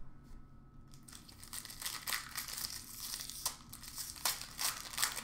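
Foil trading-card pack wrapper being torn open and crinkled, a dense run of rustling crackles starting about a second in.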